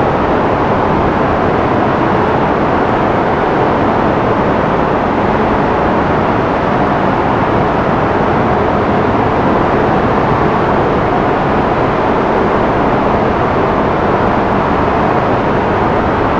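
Muddy storm floodwater rushing and churning over boulders in a flooded creek, a loud, steady, unbroken rush.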